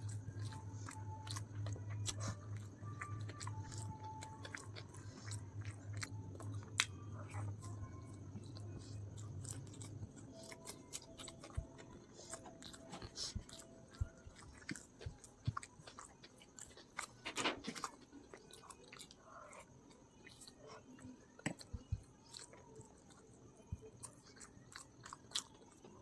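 A person chewing and eating chicken biryani close to the microphone: a run of wet mouth clicks and chewing noises, with a steady low hum under the first ten seconds or so and one louder rustle-like noise about two-thirds of the way through.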